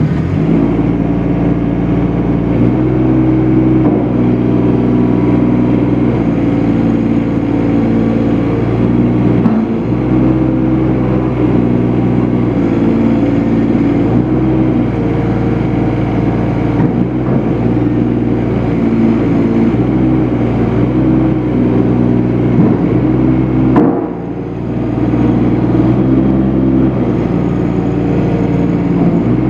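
Bobcat MT50 mini track loader's engine running steadily, its tone shifting now and then, dipping briefly about 24 seconds in before picking back up.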